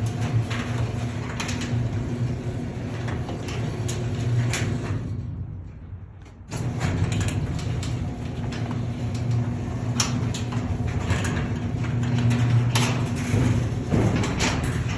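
Garage door opener running as the door travels, a steady motor hum with scattered clicks and rattles. The sound fades and goes quiet about five seconds in, then starts again suddenly about a second and a half later.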